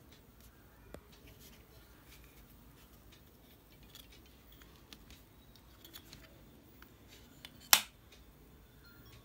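Light plastic clicks and taps from handling a boAt Airdopes 131 Pro earbud charging case, then one sharp, loud snap near the end as the case lid shuts.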